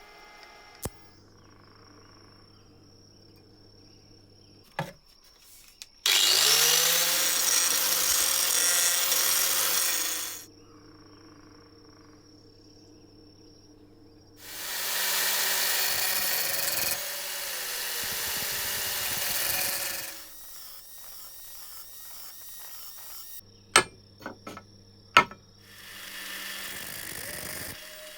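A handheld electric power tool run in three bursts, spinning up at the start of each run and running steadily for several seconds before stopping. A few sharp clicks fall in the pauses between runs.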